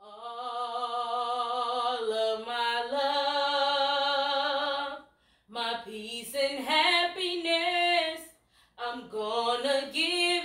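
A woman singing unaccompanied, holding long notes with vibrato. She breaks off briefly twice.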